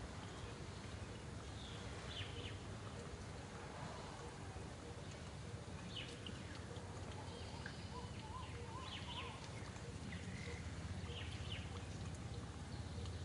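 Outdoor background noise: a steady low hum with a few faint, short, high-pitched animal chirps scattered through it and one brief wavering call about two-thirds of the way in.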